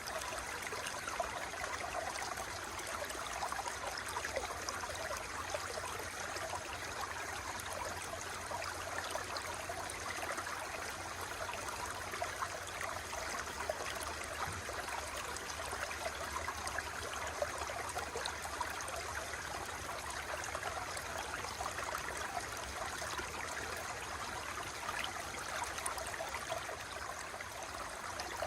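Water flowing steadily, a continuous rush with a dense patter of small splashes that does not change.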